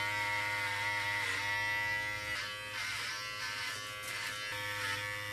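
Electric hair clippers buzzing steadily while shaving the nape and sides for an undercut, with brief dips in pitch about a second in and again near the end.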